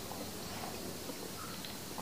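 Quiet room tone: a steady low hiss with a few faint small clicks.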